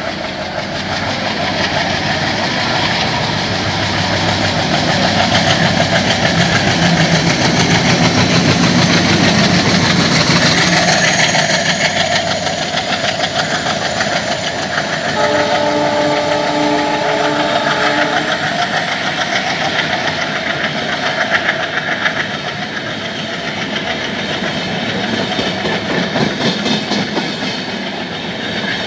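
Express train passing at speed behind twin diesel locomotives: engine noise and rushing air are loudest as the locomotives go by, then the LHB coaches roll past with the wheels clacking over rail joints. About midway a horn sounds, one steady blast of about three seconds.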